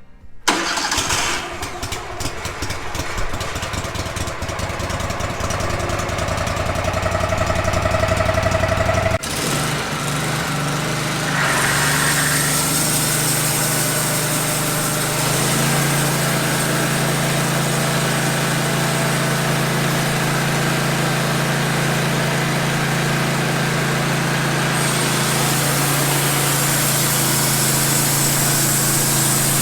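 Wood-Mizer LT15 band sawmill's engine starting about half a second in and running. It climbs steadily in pitch for the first nine seconds, changes abruptly, then settles into a steady run.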